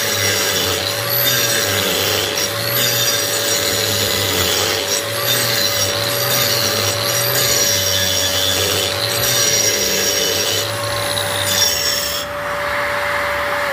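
Angle grinder in a dust shroud grinding a concrete floor: a steady high motor whine under a harsh rasping grind that swells and fades as it is swept back and forth, about every second and a half. Near the end the grinding stops and the grinder spins free with only its whine.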